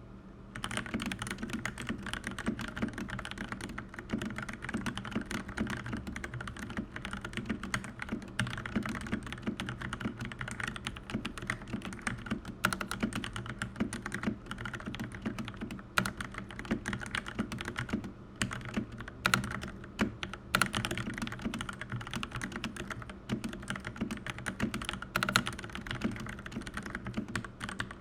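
Keychron C1 mechanical keyboard with Gateron brown switches being typed on steadily: a fast, continuous run of key clacks with a few louder strokes, starting about half a second in.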